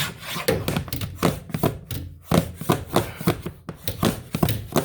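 Ryobi Airstrike cordless 18-gauge narrow crown stapler firing 1-inch staples into thin plywood underlayment in quick succession: a run of sharp snaps, about four a second.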